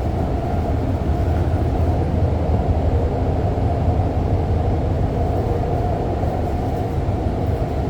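Steady rumble of an REM light-metro train running along the line, heard from inside the passenger car.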